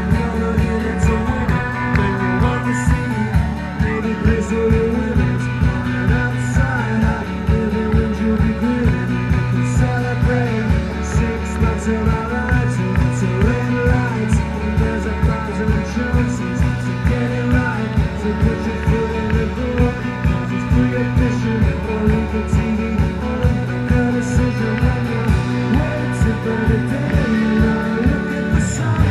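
Live indie rock band playing: electric guitars over bass guitar and drums with a steady beat.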